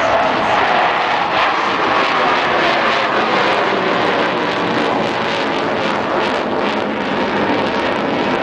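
Steady, loud jet noise from four F/A-18 Hornets flying overhead in a tight diamond formation.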